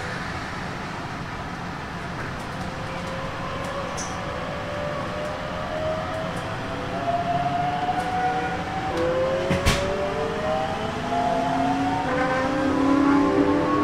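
Hokuso Railway 7300 series electric train's Toyo Denki GTO-VVVF inverter whining as the train pulls away and accelerates, several tones rising in pitch and growing louder. A sharp click about ten seconds in.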